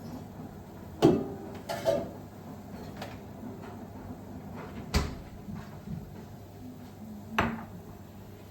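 Kitchen clatter while making chai: four separate knocks of things being handled or set down, the first two ringing briefly.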